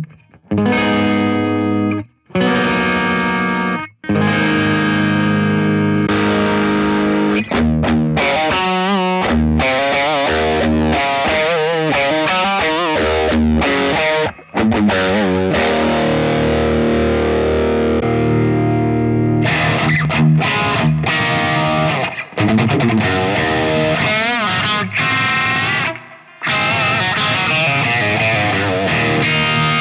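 Electric guitar with heavy distortion, played through the IK Multimedia TONEX One amp-modelling pedal: ringing chords and riffs, stopped short several times.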